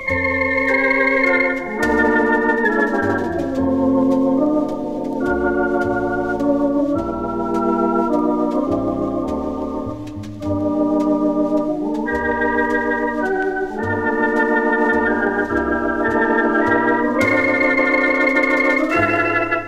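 Instrumental music from a vinyl record, led by an organ playing sustained, wavering chords over a steady bass line.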